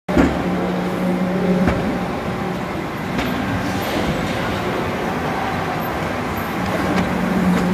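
1999 Grassi Compact 160 sheet-to-board laminator running: a steady mechanical hum with a low drone that fades for a few seconds in the middle and returns near the end, and a few light clicks.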